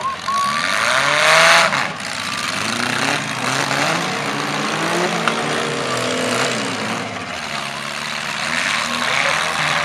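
Demolition-derby compact cars' engines revving on the dirt arena, their pitch rising and falling as they drive and ram. There is a louder rush of noise about a second in and a single sharp crack about five seconds in.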